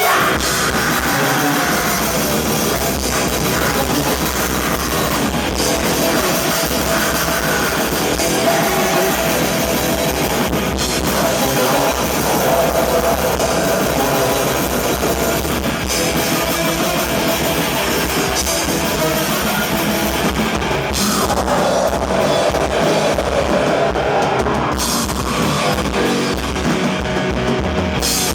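Black metal band playing live and loud: distorted guitar, bass, drum kit and keyboards, in one dense, unbroken wall of sound.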